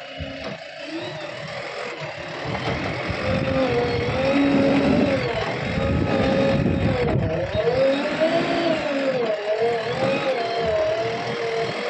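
JCB 3DX backhoe loader's diesel engine working under hydraulic load while loading gravel with its front bucket. The engine speed rises and falls over and over as the operator lifts, tips and manoeuvres.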